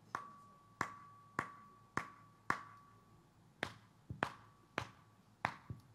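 Finger snaps, about ten sharp snaps coming roughly every half second, as a test of hearing in an ear said to have been deaf for 36 years. A faint ringing tone lingers after the first few snaps.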